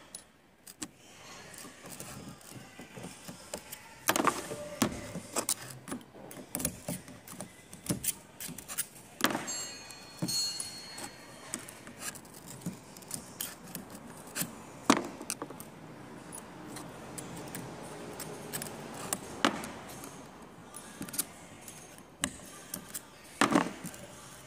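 Irregular metallic clicks and clinks of Toyota Hilux steering box parts being handled and fitted together by hand, with a small screwdriver working against the metal; a few louder knocks stand out among the light ticks.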